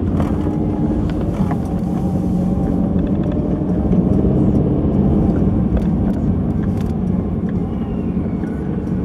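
Car engine and road noise heard from inside the cabin as the car climbs a ramp and pulls out: a steady low rumble, with a faint engine whine that rises in pitch a few times and a few light clicks.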